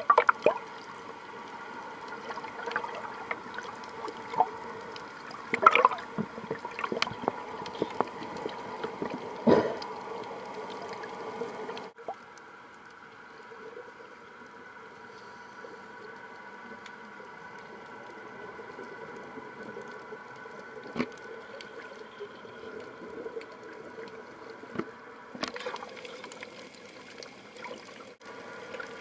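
Underwater sound picked up through a camera's underwater housing: water sloshing and gurgling over a steady hum, with several sharp pops and splashes in the first ten seconds, then quieter and steadier after an abrupt change about twelve seconds in.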